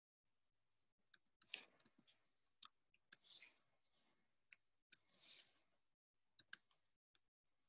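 Faint keystrokes on a computer keyboard: about ten separate, irregularly spaced clicks as a command is typed.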